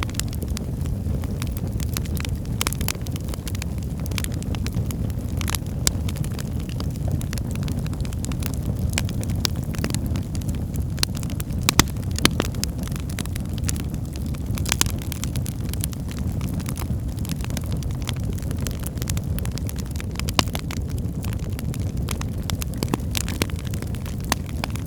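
Firewood burning in a fireplace: a steady low rumble of flames with frequent irregular crackles and pops from the wood, a few of them sharper and louder.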